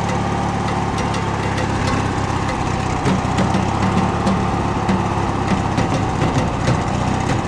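1990 Craftsman riding lawn mower engine running steadily at idle, jump-started from a separate 12-volt battery with none installed in the mower.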